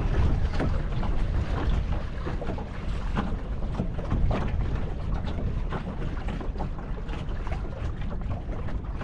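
Wind buffeting the microphone in a low rumble, with small waves slapping irregularly against the bow of a wooden Mirror dinghy under sail.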